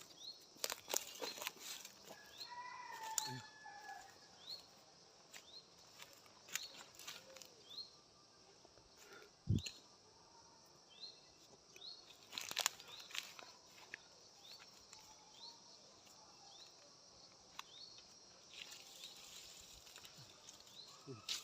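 Cut logs and brush being handled: scattered sharp snaps and crackles of twigs and leaves, with one dull thump about nine and a half seconds in. A short high chirp repeats through it.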